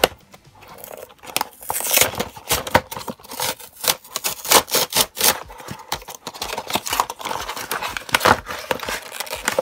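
Cardboard trading-card deck box being torn and pried open by hand: a busy run of paper tearing, crinkling and scraping, broken by sharp snaps and clicks.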